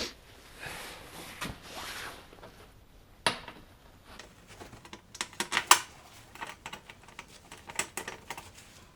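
Small metal screws and parts clinking and clicking as they are handled. There are scattered sharp clicks, the busiest stretch a little past halfway, and a soft scrape or two near the start.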